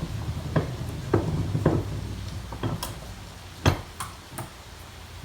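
Sharp knocks and clanks on an old sledgehammer head, about eight in irregular succession with the loudest a little past halfway, as work starts on getting the old handle out.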